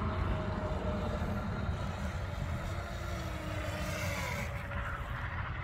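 Electric motor of a PGWW 9352 RC speedboat whining faintly as the boat runs fast across the water, its pitch shifting as it goes, over a steady low rumble.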